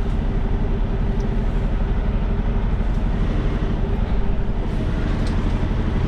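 Semi-truck diesel engine running steadily at low revs, a constant low drone while the tractor-trailer reverses slowly into a loading dock.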